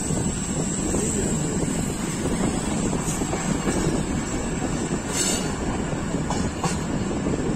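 Pakistan Railways Tezgam passenger coach rolling out of the station, a steady rumble of wheels on rail heard from the open doorway, with a few short sharp sounds a little after five seconds in and again near the end.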